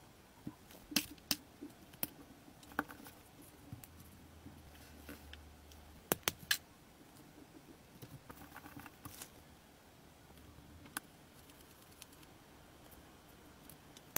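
Tiny metal and plastic parts of a miniature V8 engine model clicking and tapping as gloved fingers and tweezers fit the alternator and timing cover. The clicks are sharp and scattered, with louder ones about a second in and near the middle.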